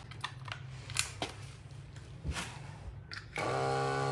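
A few light clicks and knocks of handling. Then, near the end, a Caowang WD01 12 V electric water pump switches on and runs with a steady hum as it starts drawing water.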